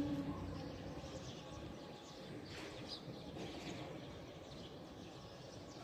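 Quiet outdoor background noise with a few faint bird chirps, the chirps clustered about two and a half to three and a half seconds in.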